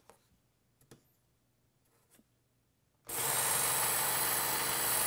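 A few faint clicks, then about three seconds in a Work Sharp Ken Onion Edition belt knife sharpener starts up abruptly and runs steadily, its abrasive belt hissing over a low motor hum as a knife blade is drawn across it in a sharpening pass.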